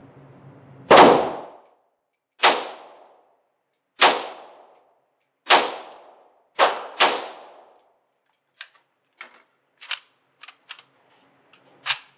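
Arsenal SLR-107fr semi-automatic AK rifle firing 7.62x39: six shots about a second and a half apart, the last two in quick succession, each with a short echoing tail. After them come several fainter sharp clicks and knocks.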